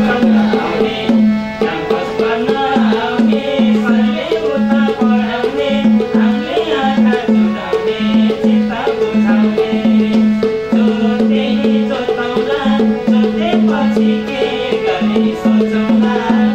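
Nepali dohori folk music: a madal hand drum beats a steady, fast rhythm under a harmonium melody.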